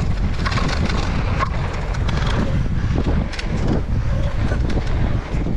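Wind rumbling on the camera microphone as a downhill mountain bike rides fast down a dirt trail. Knobby tyres roll over packed dirt, and the bike gives off a steady scatter of clicks and rattles, busiest in the first few seconds.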